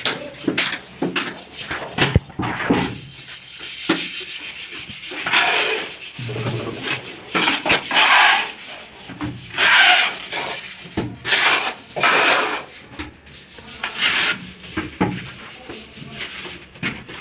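Cloth wiping across the face of a large ceramic wall tile in irregular rubbing strokes. A few sharp clicks near the start.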